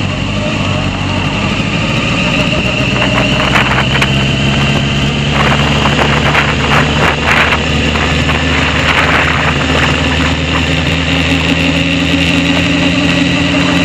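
Honda CBR sport bike's engine running steadily at low revs as the bike rolls along slowly, with a spell of light rattling clicks in the middle and the engine note rising slightly near the end.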